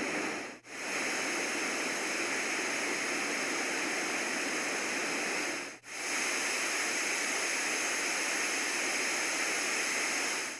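LectroFan noise machine playing its high-pitched white-noise settings as a steady hiss. It cuts out briefly about half a second in and again near six seconds as it steps to the next setting.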